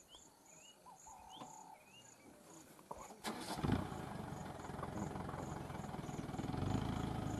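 Insects chirping in a quick even pulse, with a few short rising bird chirps. About three seconds in, after a click, a vehicle engine starts and runs on with a steady low rumble, the loudest sound.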